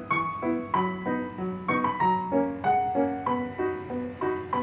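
Background music: a gentle piano-like keyboard melody of evenly spaced notes, about three a second.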